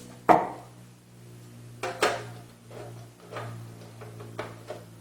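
Irregular clicks and knocks of a screwdriver and small metal parts being handled in a PC case as a drive is fitted, the loudest knock about a third of a second in. A steady low hum runs underneath.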